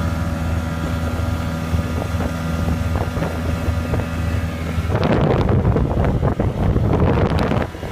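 A 1990 Johnson 70 hp two-stroke outboard motor running steadily with a constant low drone. About five seconds in, wind buffeting the microphone and water rushing past the hull of the moving boat take over and stay louder until just before the end.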